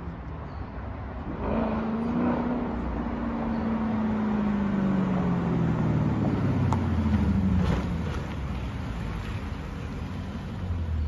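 Dodge Challenger SRT 392's 6.4-litre HEMI V8 exhaust, on new quad exhaust tips, as the car pulls up toward the listener. The low engine note comes in about a second in and falls steadily in pitch as the car slows, then settles to a low steady note near the end.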